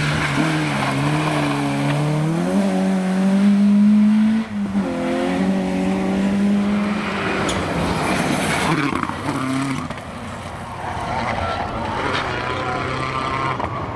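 Rally car engines on a gravel stage: a Peugeot 106 revving hard, its pitch climbing then dropping sharply at a gear change about four and a half seconds in, then holding high as it drives on. Gravel and tyre noise follow as it passes, and another rally car's engine comes in at a lower pitch near the end.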